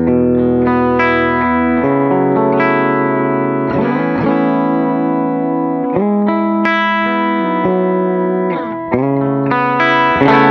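Electric guitar played through a Tonex One pedal's Vox AC30 amp model, dry with no delay or reverb: ringing chords held and changed every one to two seconds, with a short gap just before the end. The player calls the tone plasticky.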